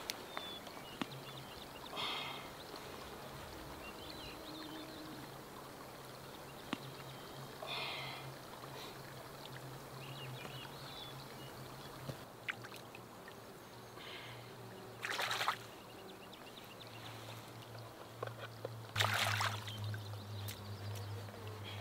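Scattered rustling and handling noises from cleaning a ground squirrel on a bag, then hands splashing in shallow creek water for a second or two near the end.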